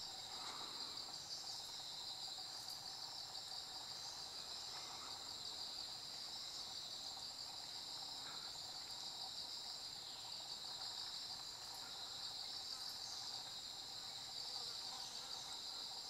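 Continuous high-pitched chirring of insects, a steady unbroken drone with a fast pulsing texture.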